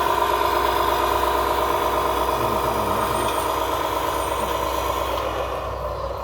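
Lesu 1/14 Hino 8x8 RC dump truck driving as it climbs onto a lowboy trailer: a steady mechanical drone with a high whine, easing slightly toward the end.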